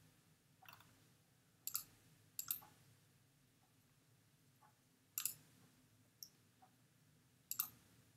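Five faint, sharp computer mouse clicks, spaced unevenly a second or more apart.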